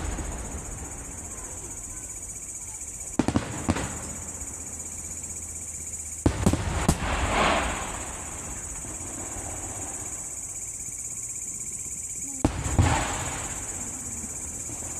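Fireworks going off in clusters of sharp bangs: a short volley about three seconds in, a louder volley with a trailing crackle around six to seven seconds in, and another near the end.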